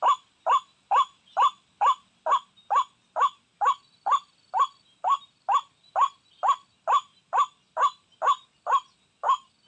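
White-breasted waterhen call: short, identical notes repeated steadily about twice a second, the monotonous call used as a lure to draw the birds in.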